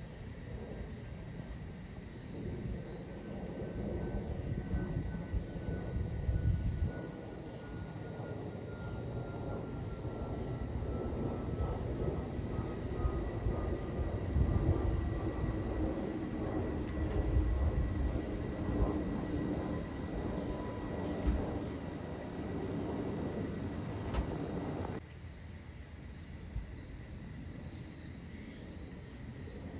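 Jet airliner passing high overhead: a distant low rumble that swells toward the middle, with a faint whine slowly falling in pitch. The rumble drops away suddenly near the end.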